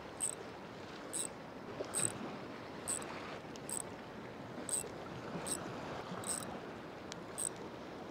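Steady wash of sea water, with a short high-pitched chirp repeating about once a second.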